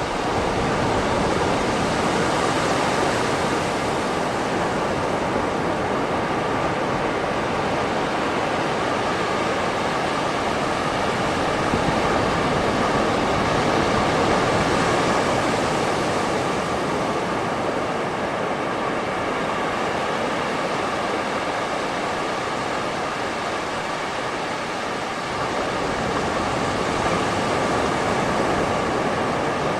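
Calm sea waves washing onto a beach: a steady rush of surf that swells and eases slowly, growing louder about two seconds in, again near the middle, and once more near the end.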